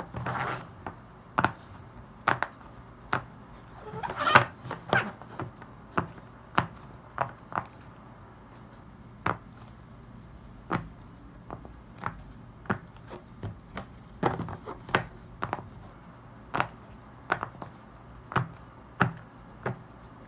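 Bubbles of a silicone pop-it fidget toy being pressed in, one after another, making separate sharp pops about one to two a second, with quicker bunches of pops near the start, about four seconds in and around fourteen seconds.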